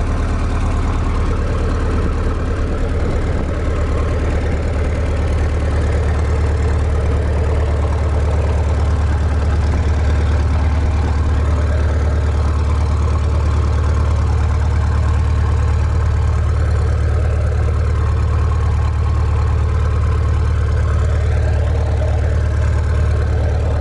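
Caterpillar D315 diesel engine running steadily at a fast idle with no load. With the welder generators disconnected, it will not idle down any lower.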